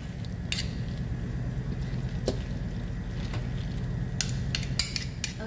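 Spoon and fork stirring and folding mayonnaise-dressed macaroni salad in a stainless steel bowl: soft wet squishing with scattered clinks of the utensils against the bowl, several in quick succession near the end.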